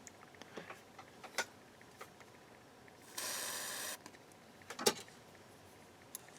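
Light clicks and taps of small parts being handled, with a spray can hissing for just under a second about three seconds in, cleaning an amplifier's power switch parts. A sharper click a little before five seconds is the loudest sound.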